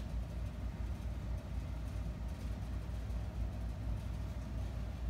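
Steady low rumble of background noise with a faint steady hum above it.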